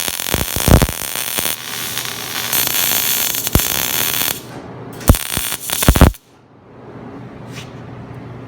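MIG welder arc crackling while welding steel: one long bead that stops about four seconds in, then two short bursts just after five and six seconds before it cuts off. A low steady hum remains afterwards.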